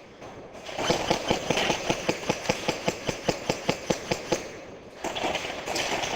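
Airsoft gun firing a fast, even string of shots, about six a second, for about three and a half seconds.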